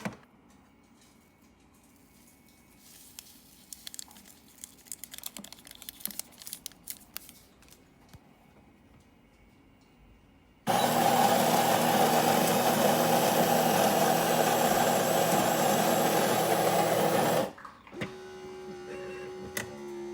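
Built-in grinder of an automatic espresso machine grinding coffee beans for about seven seconds, starting and stopping abruptly. Faint rattling and clicks come before the grind, and a quieter steady hum follows it.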